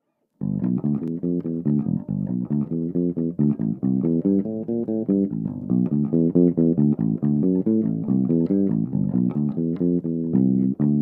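A freshly cleaned guitar played as a demonstration: a fast, continuous run of single plucked notes in the low-to-middle register, starting about half a second in.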